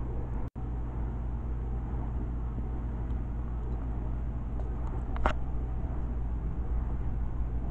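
Steady low rumble of background noise, with one short click about five seconds in.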